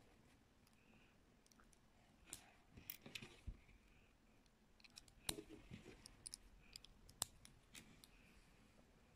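Faint, irregular clicks of small LaQ plastic pieces being handled and snapped together by hand, with a couple of sharper snaps about five and seven seconds in.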